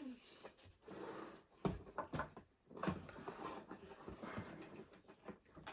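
Cardboard motherboard box and packaging being handled: a few light knocks and soft rustling, with the strongest knocks about a second and a half to three seconds in.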